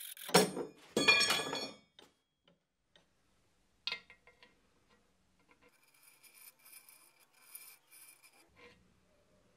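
Metal workpiece and hand tools being handled: a knock and a short rasping scrape with a metallic ring in the first two seconds, a sharp click about four seconds in, then faint light metal clinks.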